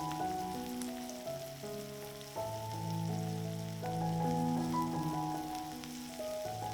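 Background instrumental music with held notes over a bass line, over a steady crackling sizzle of food frying in a pan.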